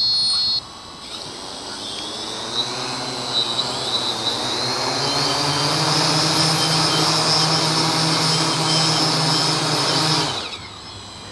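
A quadcopter's electric motors and propellers spin up with a rising whine and run steadily at high throttle for several seconds, then cut off abruptly near the end. Despite the power, the drone cannot lift its heavy payload off the ground.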